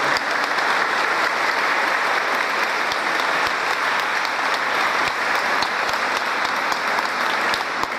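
Congregation applauding steadily in a cathedral, many hands clapping together.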